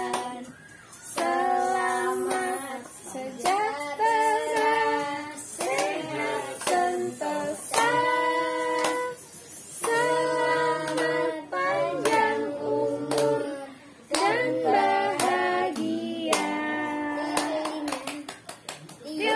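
Voices, children's among them, singing a birthday song, with hand claps through it.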